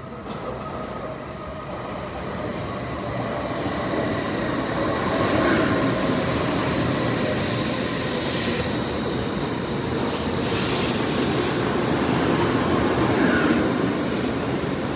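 Shinkansen bullet train pulling in alongside the platform: a steady rumble of wheels on rail with a faint high whine that drifts slowly lower as it slows. It grows louder over the first few seconds, with two short spells of hiss midway.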